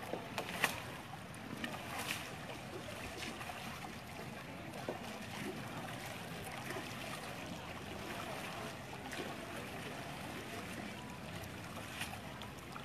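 Steady outdoor noise of wind and moving river water, broken by a few short sharp knocks.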